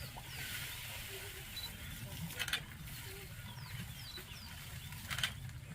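Outdoor bush ambience: small birds giving short, high, falling chirps over a steady low rumble. Two brief crackles come about two and a half and five seconds in.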